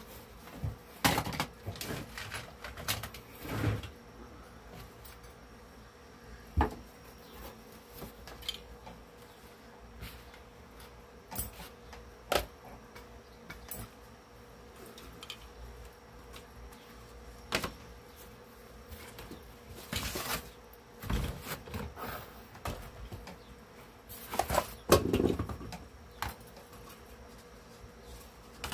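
Workshop handling noises: scattered knocks, taps and rustles as grill cloth is laid on and smoothed over an adhesive-sprayed speaker grill board, with two longer rustling stretches near the end. A faint steady buzz runs underneath.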